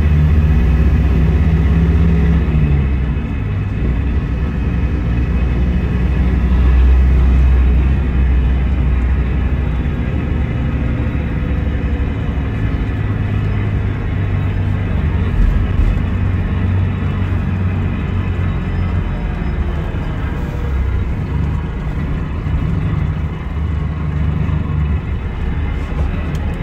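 Scania DC9 five-cylinder diesel engine of a coach running on the move, a steady low rumble whose note shifts several times, once about two and a half seconds in and again around halfway.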